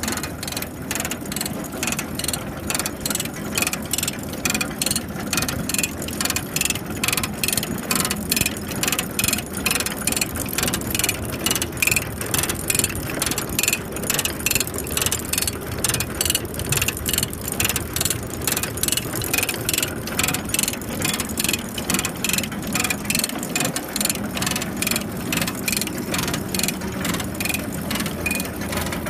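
New Holland 325 manure spreader's drive mechanism running, clicking evenly about three times a second over a steady low hum.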